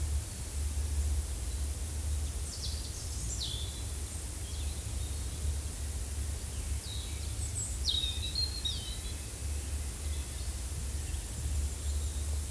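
Forest ambience: small birds chirping in short bursts now and then, over a steady low rumble.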